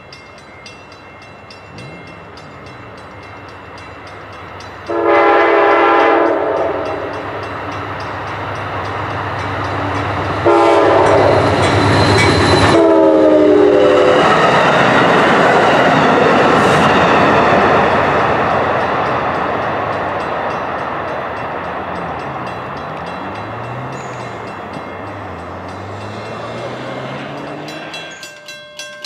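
Shore Line East passenger train sounding its horn for a grade crossing: one long blast, then two shorter ones. The train then rumbles loudly past on the rails, its coaches rolling by and the noise fading away.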